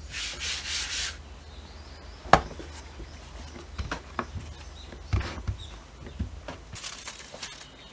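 A hand sweeps flour across a bamboo cutting board with a brief rubbing hiss, then one sharp wooden knock. Light taps and pats follow as palms press and smooth a sheet of croissant dough on the board, with another short rub of hands over dough near the end.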